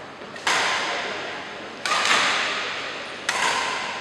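Badminton rackets hitting a shuttlecock back and forth in a rally: three sharp hits, about a second and a half apart, each trailing off in the echo of a large hall.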